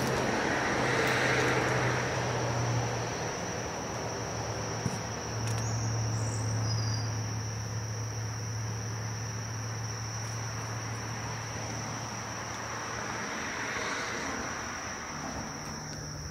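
Insects trilling in a steady high-pitched chorus, with a low steady hum that comes and goes underneath.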